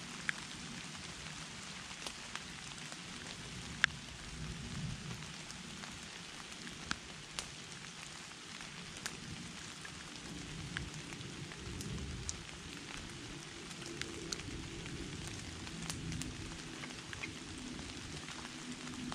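Campfire crackling: a steady hiss with a low rumble and irregular sharp pops, about one a second.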